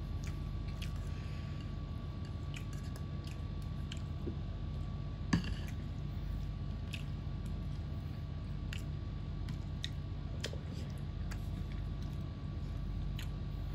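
Hand-eating sounds: chewing, and fingers squishing and mixing rice with bamboo shoot stew and fried chicken on a plate, with scattered soft clicks and one sharper click about five seconds in, over a steady low hum.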